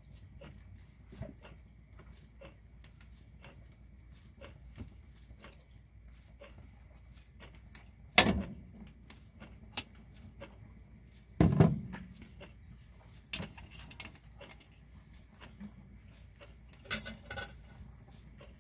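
Kitchen handling sounds as olive oil goes into a wok: faint scattered clicks, then two louder knocks about three seconds apart from the glass oil bottle being handled, and a few more small clicks near the end.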